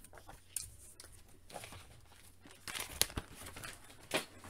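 Paper rustling and light clicks as a comic book is handled and moved aside, with the sharpest sounds about three seconds in and just after four seconds.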